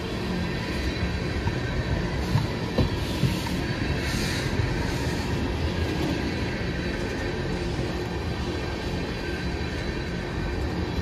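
Freight train rolling past, a steady rumble of wheels on rail with a thin, steady high squeal from the wheels.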